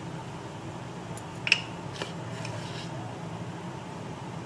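A few light clicks of a utensil against a steel cooking pot, the sharpest about a second and a half in, over a steady low hum, as salt is added to the pot of spiced water on the stove.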